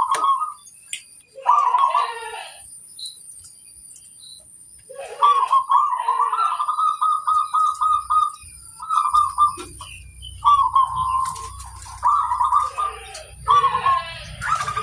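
Zebra doves (perkutut) cooing: repeated bouts of rapid, trilled coos around a middle pitch, with short gaps between phrases. A low rumble runs under the calls in the second half.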